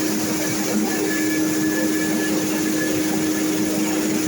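Small rice milling unit running: a steady mechanical hum with an even hiss over it.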